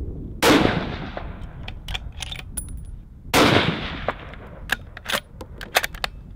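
Two shots from a 6.5 Creedmoor Savage bolt-action rifle, about three seconds apart, each trailing off in an echo. After each shot come a run of sharp metallic clicks as the bolt is worked, with wind rumbling on the microphone underneath.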